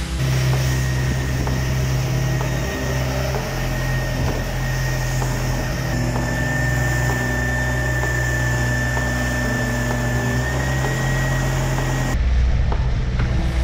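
Background music of sustained droning synth notes that shift in steps. About 12 seconds in it cuts to the rushing rumble of an outboard-powered boat running at speed, with wind buffeting the microphone.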